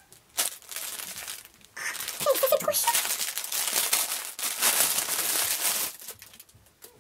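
Gift wrapping paper crinkling and rustling as a soft present is unwrapped by hand, stopping about six seconds in.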